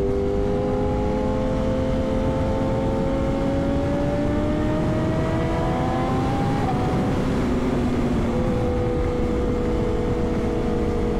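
Sport motorcycle engine under way at highway speed, its note climbing slowly as it pulls. About two-thirds of the way through the pitch drops, then holds steady. Heavy wind rush on the microphone throughout.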